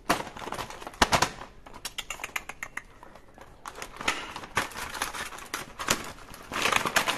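Cardboard toy box being handled and opened: irregular rustling, scraping and tapping of the packaging, with a sharper knock about a second in.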